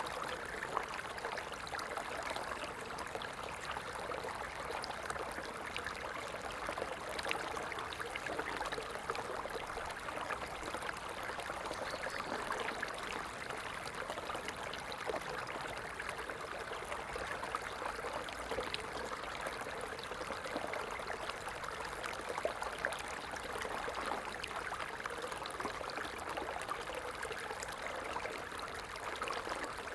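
A stream flowing steadily, its water running on without pause.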